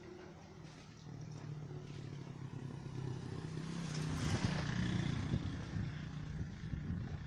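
A motor vehicle engine passing by, its drone growing louder to a peak about four seconds in, then easing off.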